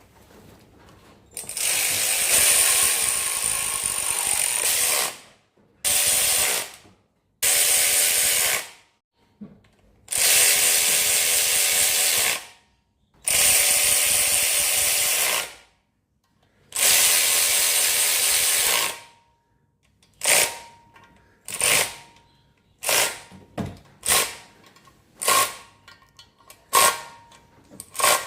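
Compressed-air blow gun hissing in long blasts of two to three seconds while an engine oil pan is blown clean and dry. From about 20 seconds in it gives short quick blasts, about one a second.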